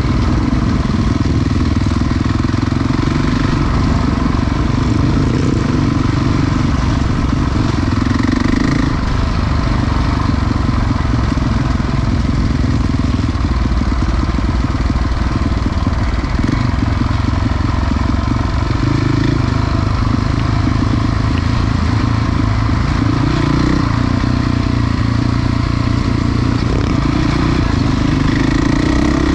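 Enduro motorcycle engine running continuously as the bike is ridden off-road, its note shifting now and then.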